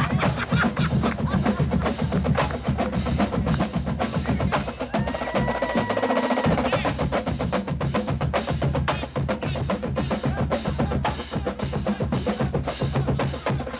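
Marching band drumline playing a street cadence: snare and bass drum strokes in a steady march rhythm. A single held high tone sounds for about two seconds midway through.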